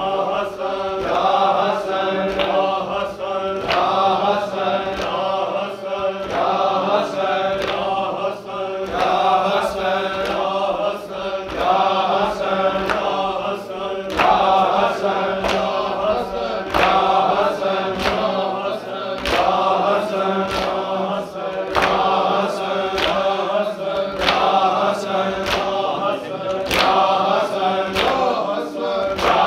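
A noha, a Shia lament, chanted by a group of voices, with a regular beat of sharp strikes under the chanting.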